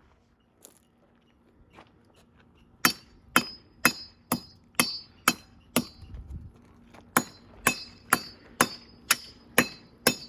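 Machete blade chopping into a pole: sharp, ringing strikes about two a second, starting about three seconds in, with a short pause just after the middle.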